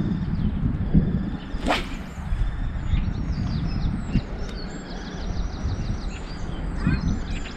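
An ultralight spinning rod (Daiwa Prorex X UL) swishes through the air in a single quick cast about two seconds in. Small birds chirp repeatedly throughout.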